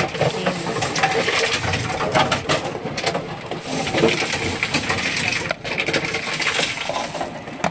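Plastic PET bottles clattering and crackling as a bottle-recycling machine takes them in and crushes them, a busy run of clicks and knocks.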